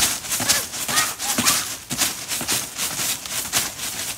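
Broken ice shards on a frozen trampoline mat crunching and crackling under a child's footsteps, in a quick irregular run of short crunches, several a second.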